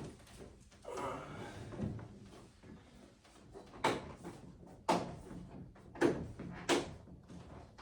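A panel locking strip being pressed and tapped into its channel on a display case: a scraping rub about a second in, then four sharp clacks about a second apart.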